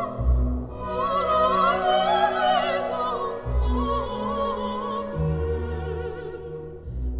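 Operatic music: a high voice singing with wide vibrato over an orchestra with sustained low bass notes.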